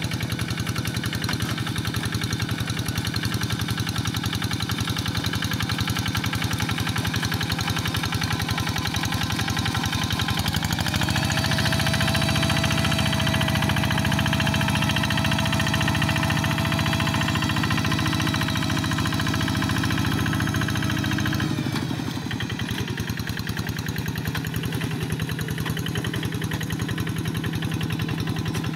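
Two-wheel hand tractor's single-cylinder diesel engine running steadily while it pulls cage wheels and a tiller through wet paddy mud. It grows louder for about ten seconds in the middle, then drops back.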